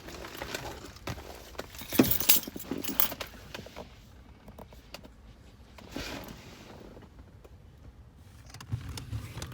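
Clicks, knocks and rattling of metal and plastic parts being handled while a car's heater blower motor is refitted under the dashboard, with the loudest knock about two seconds in.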